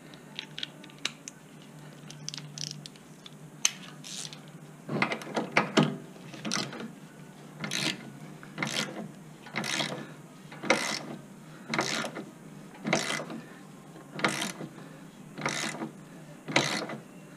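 Hand socket ratchet being worked back and forth, its pawl clicking in short strokes about once a second from about five seconds in, with a few scattered tool clicks before that.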